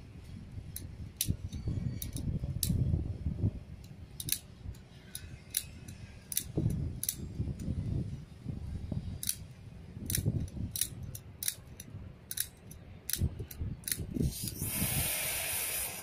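Repeated sharp clicks of a flint spark igniter being struck at the top of a Cadweld exothermic welding mold. About a second and a half before the end, the welding charge ignites with a loud hissing rush as the molten metal reacts in the mold.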